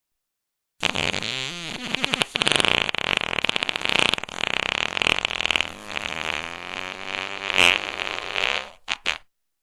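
A long fart sound whose pitch wobbles up and down, starting about a second in and cutting off suddenly near the end.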